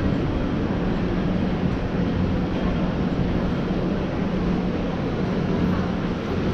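Steady city street noise from traffic, with a continuous low hum.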